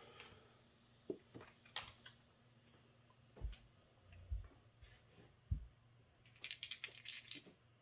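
Faint handling sounds on a felt craps table as the dice are raked back with a stick and the ON puck is set on the point: scattered light clicks and a few soft thumps, then a quick run of clicks near the end.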